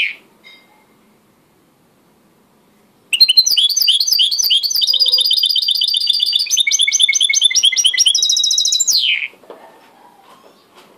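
White mixto, a goldfinch × canary hybrid, singing in its cage: after about three seconds of silence it delivers a six-second phrase of fast trills and rapidly repeated notes, ending on a falling note.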